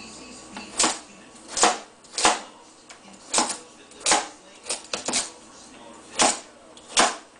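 Chef's knife chopping a carrot on a plastic cutting board: about ten sharp chops at an uneven pace, roughly one a second, with a quick pair about five seconds in.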